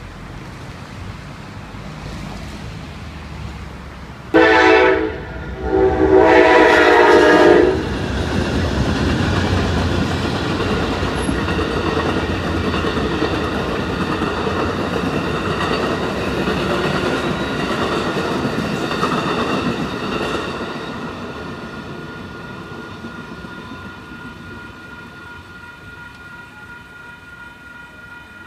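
An Amtrak P42 diesel locomotive sounds its horn in two blasts, a short one and then a longer one. Its passenger train then rolls over the crossing with rail clatter that fades away, while the crossing warning bell rings steadily.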